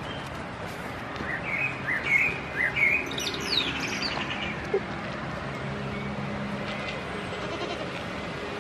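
A bird chirping: a few short chirps about one to three seconds in, followed by a quick run of falling notes, over steady outdoor background noise.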